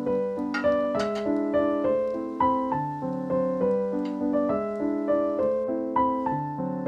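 Background piano music, a melody of notes changing a few times a second over held lower notes.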